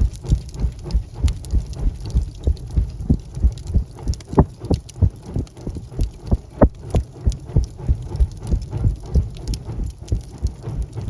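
Wood fire crackling in a fireplace, with a steady run of irregular pops and snaps over a low rumble.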